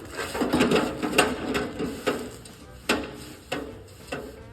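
Bodywork hammer tapping on the sheet-steel front fender of a 1955 Chevy to work out dents: a quick run of metallic taps in the first second and a half, then single taps every half second or so.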